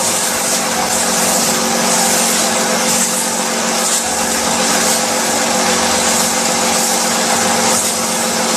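An oxygen-spray facial beauty machine running: a steady pump hum with a constant hiss over it, unchanging throughout.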